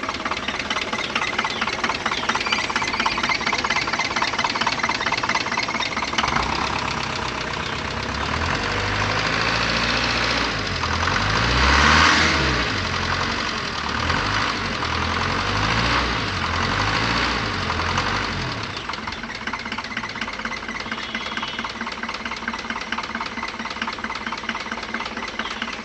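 Hindustan Ambassador car engine running, first run after standing nine years. It is revved up and down several times in the middle, loudest about halfway through, then settles back to a steady idle.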